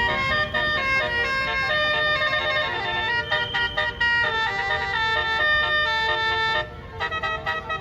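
Bus telolet horn: a bus's set of multi-tone horns playing a tune, stepping from note to note. It breaks off briefly near the end and then starts again.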